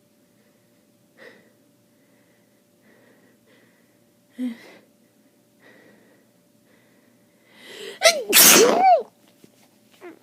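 A person with a wet head cold takes a few short breaths, then draws a rising inhale and lets out one loud sneeze about eight seconds in, the voice in it sliding up and back down.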